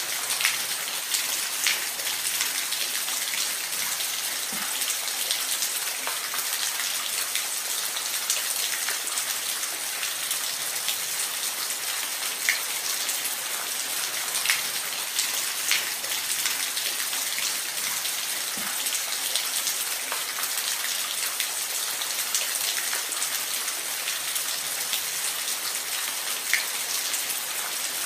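Steady hiss of falling water, bright and even, with scattered small splashy ticks.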